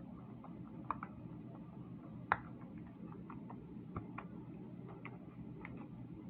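Bubbles of a silicone pop-it fidget toy being pressed: about a dozen small, irregular pops, the loudest about two seconds in, over a steady low hum.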